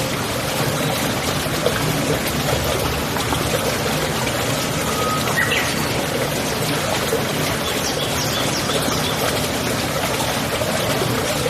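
Steady running water like a stream or brook, with a few short bird chirps about five seconds in and again around eight to nine seconds.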